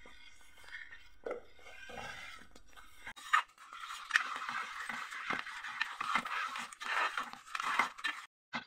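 Metal spoon stirring and scraping a thick, sticky jaggery and rice-flour paste around a metal pot as it cooks down, with many small scrapes, clicks and wet smacks. The stirring grows denser and louder about three seconds in.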